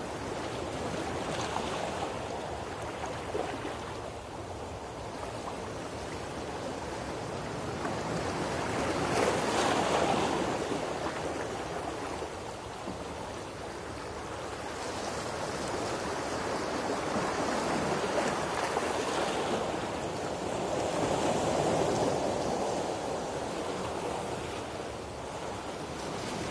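Surf on a beach: a steady rush of waves that swells and ebbs every several seconds.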